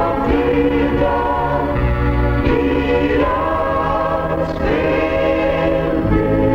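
Gospel choir singing slow, sustained chords over an instrumental backing, played as music between the programme's spoken segments.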